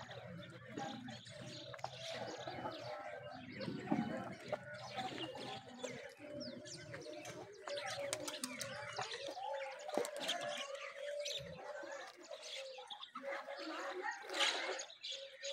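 Small birds chirping, with doves cooing.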